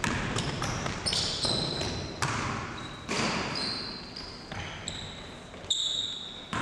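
Basketball bouncing on a gym floor in uneven thuds that echo in the hall, the loudest at the very start and again near the end, mixed with short high-pitched squeaks of sneakers on the court.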